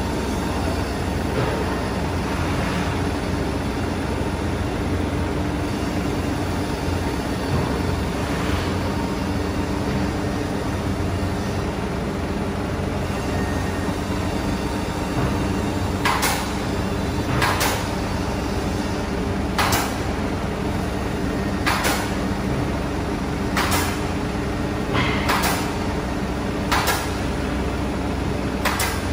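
Steady machinery hum, with short hissing bursts repeating every one and a half to two seconds from about halfway through.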